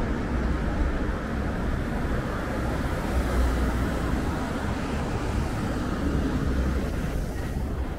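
Street traffic noise: a box van driving past close by, a steady low rumble that thins out near the end.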